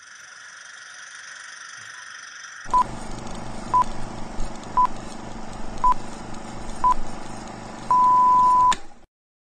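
Old film-leader countdown sound effect: a steady hiss, then a film projector starts clattering under it about three seconds in. Over the clatter, a short high beep sounds once a second, five times, then a longer beep near the end before everything cuts off suddenly.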